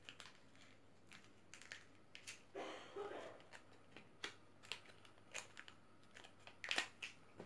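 Hands handling a phone and its boxed accessories: scattered light clicks and taps, a brief rustle about two and a half seconds in, and a louder cluster of clicks near the end.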